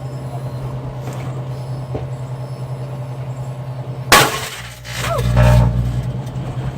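Microwave oven humming steadily while a light bulb glows inside it; about four seconds in the bulb bursts with a sudden loud crack of breaking glass. A louder low rushing hum swells for about a second just after.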